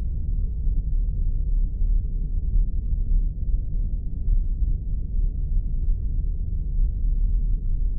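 Spaceship ambience sound effect: a steady, deep rumbling drone with all its energy in the low end and nothing bright above it.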